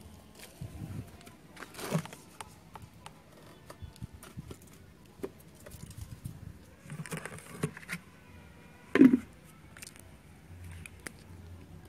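Hands handling coarse potting media and a plastic pot: scattered rustles, small crackles and clicks, with one louder knock about nine seconds in.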